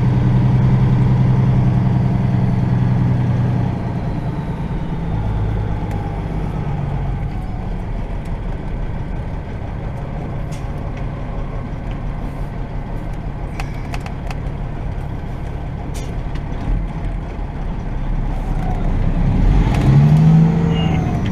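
Semi-truck's diesel engine heard from the cab while pulling out of a truck stop: a steady running hum that drops lower about four seconds in, then builds again as the truck pulls harder near the end. A few sharp clicks come midway.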